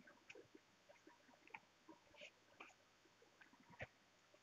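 Faint, scattered pops and crackles of hot oil as pabda fish fry in a kadai.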